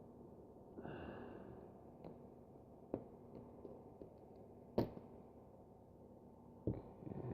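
Faint handling noises of a lock cylinder and screwdriver being picked up and set down: a few sharp clicks and knocks, the loudest a little under five seconds in. A short breathy sound about a second in.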